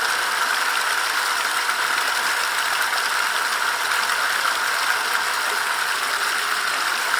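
Radio-controlled 8x8 scale trial truck crawling slowly over rocks, its drive running with a steady whine and light mechanical rattle.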